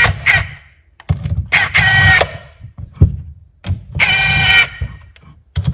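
Power driver running in the transmission case bolts, in two bursts of about a second each, with clicks and knocks between.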